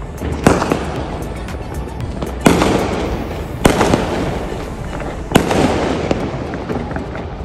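Aerial fireworks bursting: a steady crackle of pops with four louder bangs spaced one to two seconds apart. Music plays in the background.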